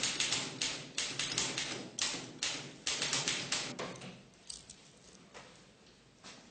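Manual typewriter keys struck in a quick, uneven run of about four strokes a second, stopping about four seconds in, followed by a few faint scattered knocks.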